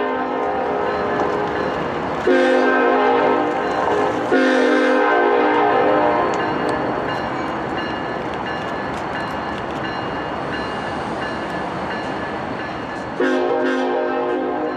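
Diesel locomotive's multi-chime air horn sounding as the train approaches: one blast ends right at the start, two more come about two seconds apart, and another begins near the end. Between the blasts are the train's steady running noise and a bell ringing.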